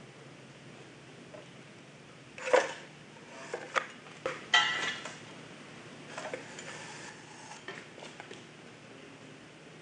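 Steel brackets, worked as pry bars, clanking and scraping against the mold while the cast concrete rotor is pried loose. A few sharp metallic clanks come between about two and five seconds in, followed by lighter taps.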